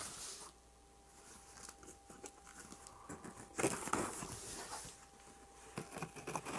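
Packing tape and cardboard of a shipping box being cut and pulled open: faint scraping and crinkling, with a louder rustle of tape about three and a half seconds in.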